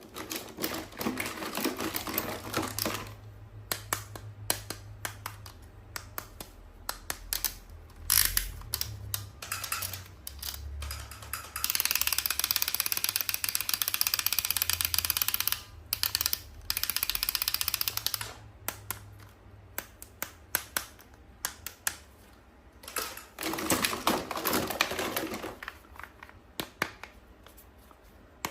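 Plastic toy packaging being handled and opened by hand: rapid clicks and taps, with a stretch of steady crinkling or rustling in the middle.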